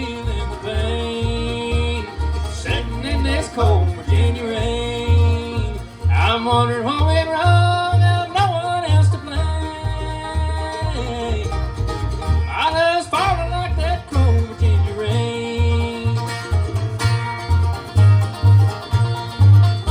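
Bluegrass music with no singing: banjo and guitar over a steady bass beat, with sliding lead lines.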